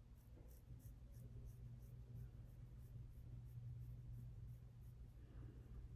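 Faint, quick scraping strokes of a facial razor shaving peach fuzz from skin coated in oil-based cleansing balm, about three strokes a second, over a low steady hum.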